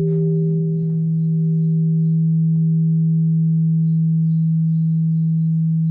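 Japanese bronze temple bell (bonshō) ringing on after a strike, a long steady low hum with a higher overtone while the upper partials fade away.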